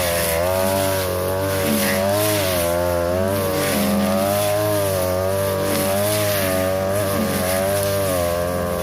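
42cc two-stroke brush cutter running at high revs, its pitch dipping and recovering about once a second as the metal blade cuts through tall grass and brush.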